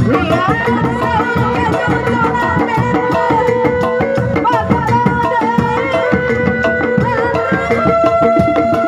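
Loud live Sundanese traditional music: hand drums beat a fast, busy rhythm under a wavering melody line, which settles into a long held note near the end.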